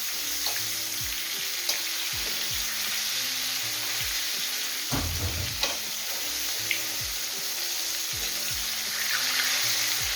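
Egg-and-flour coated chicken strips deep-frying in hot oil, with a steady sizzle. A few sharp clicks come from a fork turning the strips in the pan. Quiet background music with a regular beat plays underneath.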